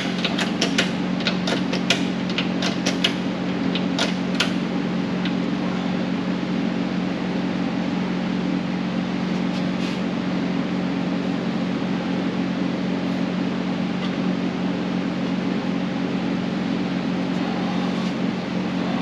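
A steady mechanical hum, with a quick run of light clicks and taps during the first four seconds or so.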